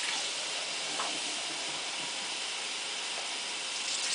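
Water running steadily from a kitchen tap into the sink.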